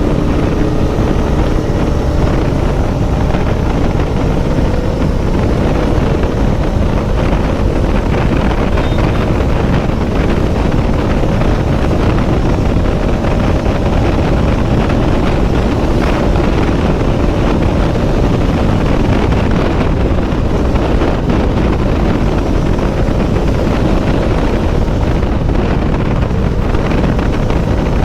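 Motorcycle ridden at a steady pace: its engine runs under heavy wind rushing over the microphone.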